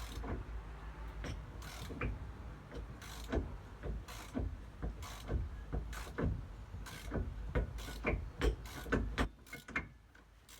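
Socket ratchet clicking in repeated strokes as a bolt on a Ford Transit's brake and hub housing is worked.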